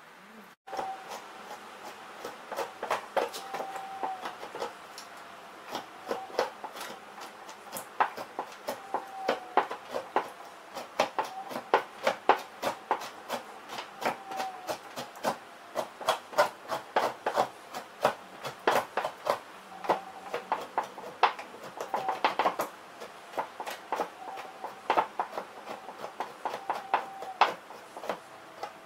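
Two-handled fleshing knife scraping fat and flesh off a beaver hide stretched over a fleshing beam. It makes a quick, uneven series of sharp scraping clicks, a few strokes a second, with short pauses between runs.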